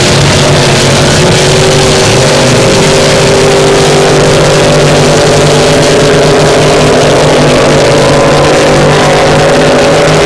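Supercharged, alcohol-fuelled displacement racing powerboats running flat out, a loud, steady engine note with a slight upward drift partway through.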